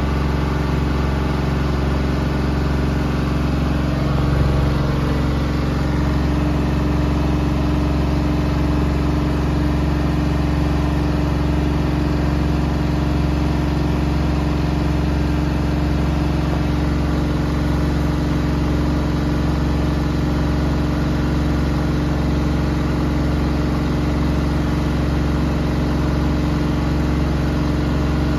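Bosch VarioPerfect EcoSilence Drive front-loading washing machine running steadily with its drum turning in a service-mode spin, a constant motor hum with a few steady tones over the noise of the drum and water.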